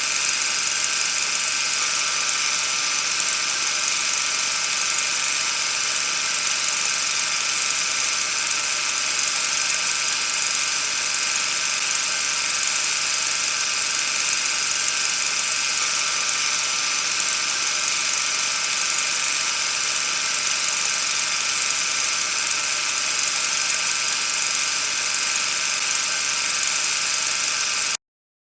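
Steady, unchanging whirring hiss with a few faint steady tones in it; it cuts off suddenly near the end.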